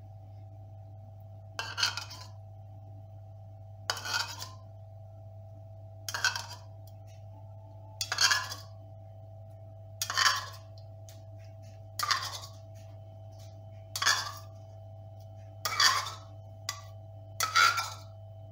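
Metal teaspoon scraping and clinking in a plastic bowl as lemon juice is scooped out, a short sound about every two seconds, over a steady low hum.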